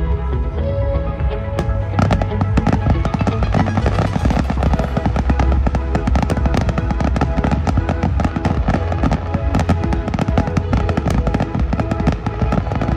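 Aerial fireworks display: many bangs and crackles in quick succession, thickening about two seconds in, with music playing throughout.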